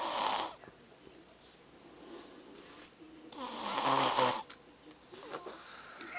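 A three-year-old child snoring in sleep. There is a short snoring breath at the start and a longer, louder one about three and a half seconds in, with a low buzz.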